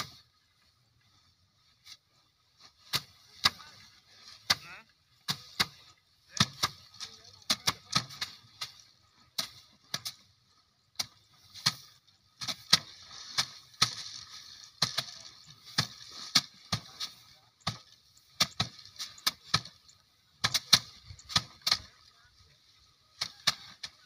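Bundles of rice stalks beaten by hand against wooden threshing frames by several workers: irregular sharp whacks, often one or two a second and overlapping, with a rustling hiss of straw and grain between strikes. The beating starts about two seconds in.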